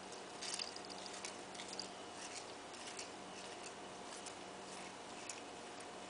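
A cat chewing and tearing at the leaves of a flower bouquet: faint, irregular little crunches and clicks, a cluster of the sharpest about half a second in.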